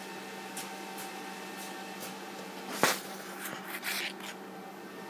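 Camera being picked up and handled: a sharp knock a little under three seconds in, then brief rubbing and clicks. Under it runs a steady hum and hiss from the running induction hob with water boiling in the pot.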